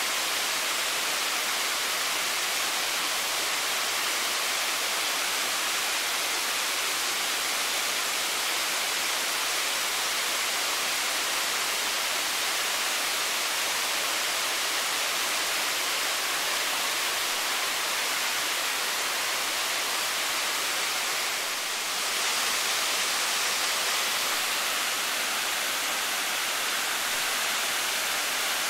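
Waterfall: a steady rush of falling water, dipping only briefly about three-quarters of the way through.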